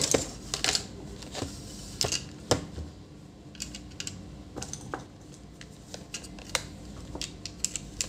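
Irregular light clicks and taps as multimeter probes and fingers touch and move a bare laptop motherboard and its cables, a few scattered ticks at a time.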